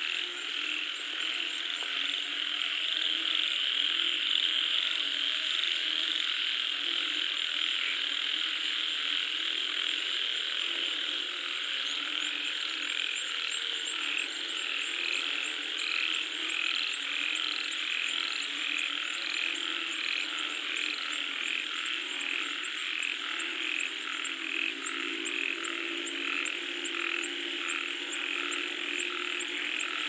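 A night chorus of many frogs calling at once, a dense overlapping croaking. From about twelve seconds in, one caller's regular pulsing notes stand out at a little more than one a second, over a fast high ticking.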